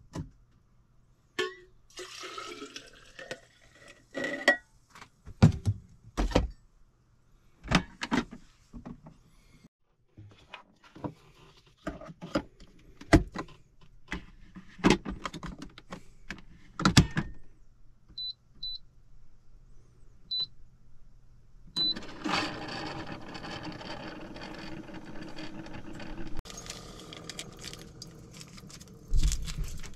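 Sharp knocks and clicks of gear being handled, then four short high beeps, then water running steadily from about two-thirds of the way through, its sound shifting near the end.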